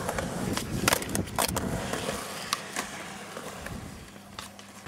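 Small hard wheels of skatepark riders rolling over concrete, with several sharp clacks and knocks from boards or scooters hitting ramps and landing.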